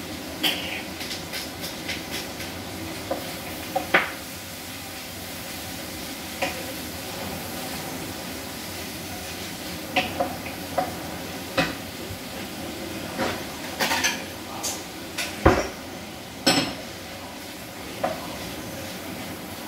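Wooden spatula knocking and scraping against a frying pan as food is stirred, in irregular clacks over a steady hiss. A pepper grinder ticks briefly near the start.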